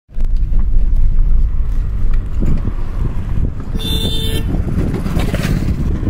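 A dense low rumble of traffic and wind, with a brief vehicle horn toot about four seconds in.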